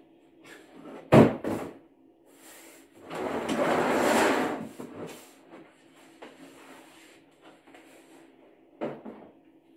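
A hard plastic tool case being handled. It knocks sharply as it is set down about a second in. A longer scraping rustle follows as it is laid flat and slid across a plastic surface, then lighter clicks as the latches and lid are worked open.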